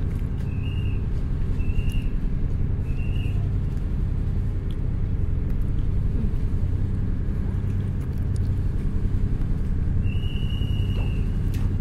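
Houseboat engine running under way, a steady low drone. A short high chirp repeats about once a second over the first few seconds, and a longer one sounds near the end.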